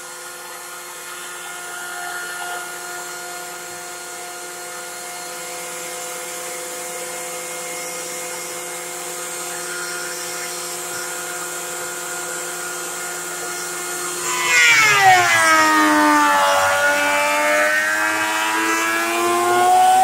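Ridgid benchtop thickness planer running with a steady motor whine. About three-quarters of the way in, a board enters the cutterhead: the sound gets much louder, the motor's pitch drops sharply as it bogs under the cut, and then it climbs slowly back up as it recovers.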